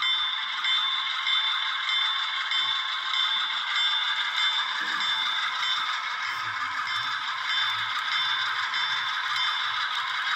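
Model diesel locomotive's sound decoder playing a steady diesel engine sound through its small onboard speaker, thin with no deep bass, with the wheels rattling along the track.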